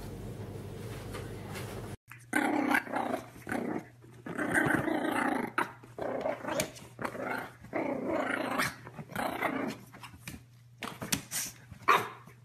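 A small dog growling in a series of short bursts, about one a second, while it plays and digs in its bed. A faint steady hiss comes before the growling starts, about two seconds in.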